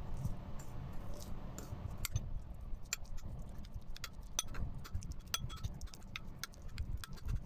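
Kitchen utensils clinking and clicking against a dish in quick, irregular taps, some with a short bright ring, over a low steady hum: typical of mixing dressing ingredients in a bowl with a spoon.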